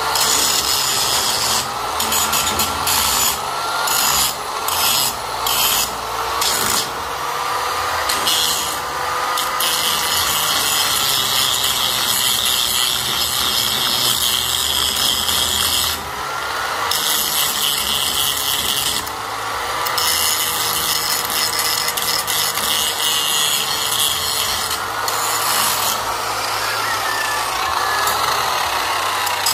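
Angle grinder with its disc pressed against metal grille bars: a steady, loud grinding hiss over the motor's whine, which wavers in pitch as the disc bears on the metal. The hiss breaks off briefly several times in the first few seconds and twice more later, where the disc comes off the metal.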